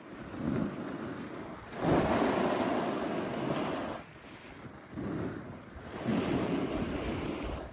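Snowboard edges carving through snow in a series of turns: four surging hisses, each lasting one to two seconds, with wind on the microphone.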